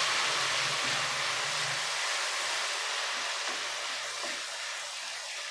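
Onions frying in hot oil with a splash of water in a pan, sizzling and bubbling as a spatula stirs them. The water was added to keep the browned onions from burning. The sizzle dies down steadily.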